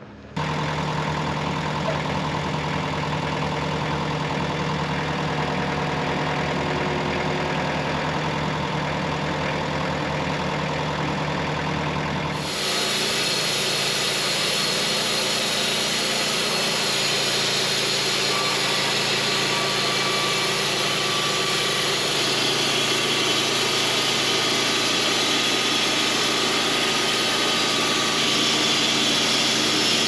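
Wood-Mizer LT15 Wide portable band sawmill's engine running steadily. About twelve seconds in the sound turns suddenly harsher and brighter as the band blade cuts through a pine log, and it holds steady through the cut.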